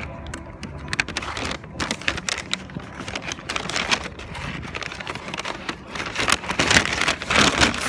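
A white paper bag is rustled and crinkled as it is unfolded and opened right at the microphone, in a run of irregular crackles that is loudest in the last couple of seconds.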